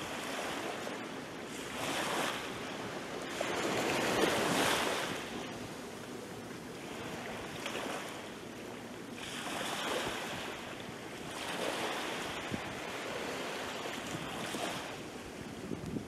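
Small waves breaking and washing up a sandy beach, the surf swelling and fading every few seconds, loudest about four seconds in.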